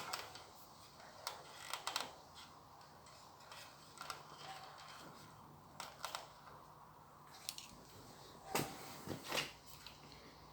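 Faint scattered clicks and light knocks of small parts and tools being handled, with the two loudest knocks near the end.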